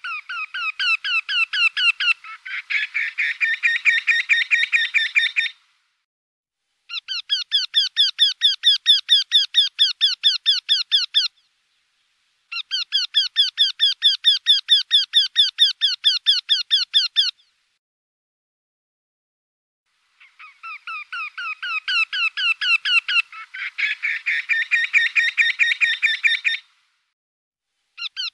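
Eurasian wryneck singing: four phrases of evenly repeated calls, about four to five notes a second, with short pauses between phrases. In the first and last phrase a second series overlaps the first.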